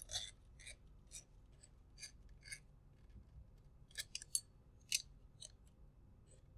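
Faint, scattered small clicks and ticks of small plastic and metal parts being handled while a shock and its spring are fitted on a small RC car chassis, with a quick cluster of sharper clicks about four to five seconds in.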